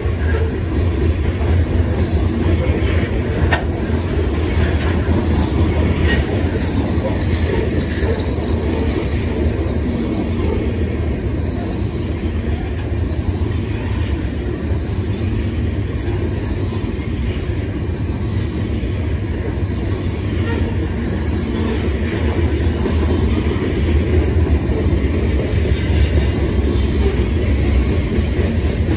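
Freight train of covered hopper cars rolling past: a steady, loud rumble of steel wheels on rail, with a few short clanks.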